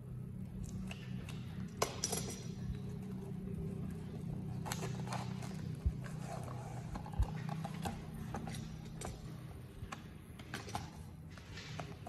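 Plastic shrink-wrap crinkling and a cardboard phone box being handled and slid open, with a few sharp clicks and taps against a glass tabletop, over a steady low hum.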